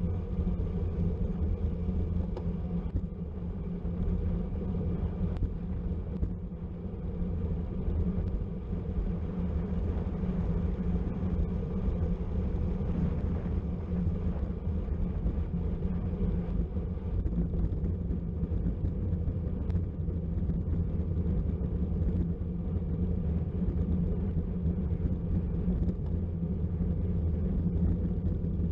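Steady low rumble of wind buffeting the microphone and tyre noise from a road bicycle ridden at race speed, with no break or change throughout.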